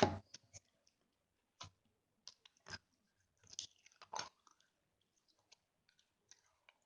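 Crunchy slime being squeezed and poked by hand, giving scattered crackling pops and clicks. The pops are loudest at the start and around four seconds in, then thin out to faint ticks.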